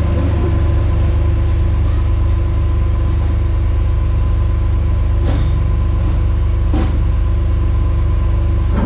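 Rollback tow truck's engine idling with a steady low hum, with a few light clicks and taps, the clearest about five and seven seconds in.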